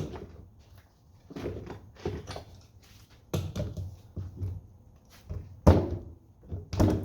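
A series of irregular knocks and clunks as metal parts and hand tools are handled during disassembly, with the loudest knock about two thirds of the way through.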